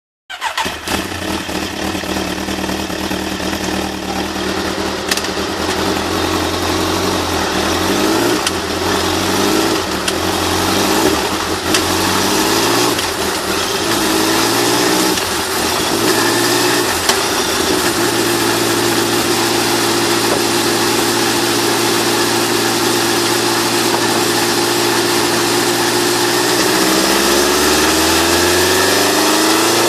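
Kawasaki Z1000 inline-four running through an aftermarket IXIL exhaust on a motorcycle dyno. It idles and the revs rise and fall gently, then hold steady, and about 27 seconds in the revs begin climbing steadily as the throttle opens for the dyno pull.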